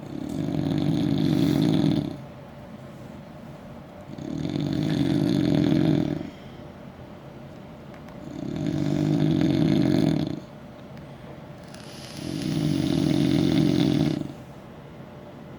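A man snoring loudly: four long snores about every four seconds, each lasting about two seconds, swelling in loudness and then cutting off sharply.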